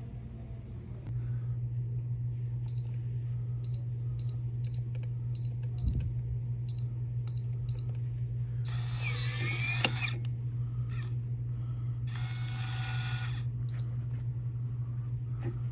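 A string of about a dozen short, high electronic beeps at one pitch, unevenly spaced, over a steady low hum; later a brief scratchy burst and about a second of hiss.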